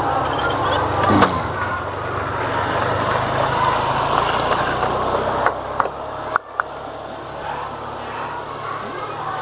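A motor vehicle engine idles with a steady low hum that stops about six and a half seconds in, under a background of children's chatter. A few sharp clicks sound over it, one about a second in and several just before the hum stops.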